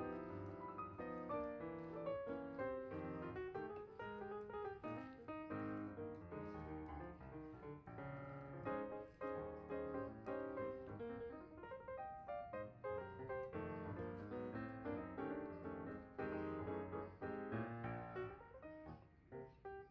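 Background piano music: a steady run of separate notes with no beat-driven backing.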